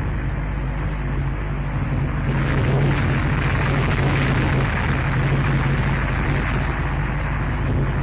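Steady rumbling noise with a constant low hum underneath, unbroken throughout.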